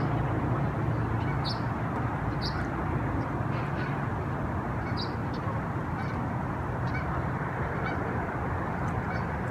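Birds calling outdoors, short high calls every second or two, over a steady background rumble.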